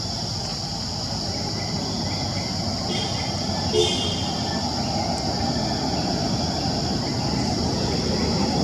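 Outdoor ambience: a steady high insect drone over a low rumble, with one brief chirp about four seconds in.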